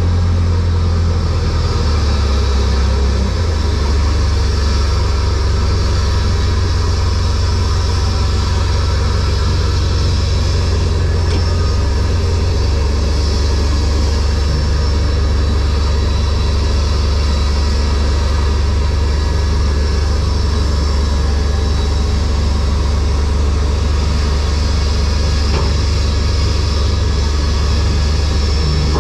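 Heavy diesel engine of an aircraft pushback tug running steadily, a deep low rumble with a steady hiss above it.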